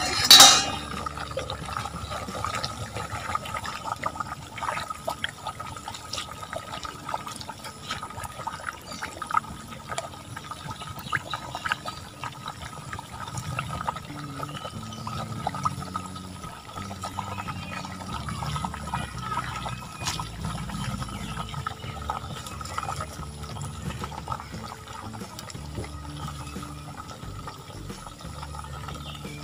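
Hot oil sizzling and crackling steadily around a whole chicken deep-frying in a large pot, with one loud sharp pop about half a second in.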